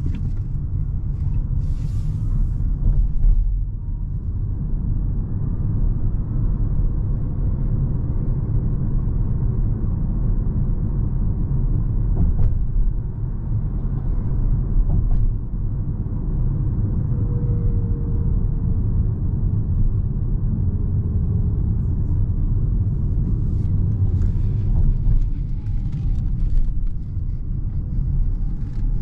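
Steady low rumble of road and tyre noise inside the cabin of a 2022 Peugeot e-2008 electric SUV driving at town speed.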